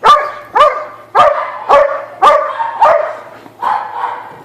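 A dog barking repeatedly, about two loud, sharp barks a second.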